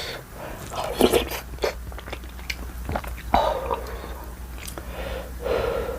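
Close-miked chewing of spicy ramen and kimchi: wet mouth clicks and crunches, with a few longer slurp-like eating noises.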